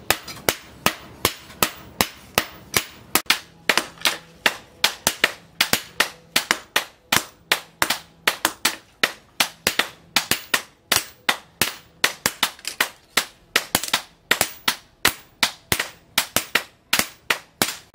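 Hammer blows on a red-hot steel knife blade resting on a post anvil: a steady run of sharp metallic strikes, about three a second, each with a short ring.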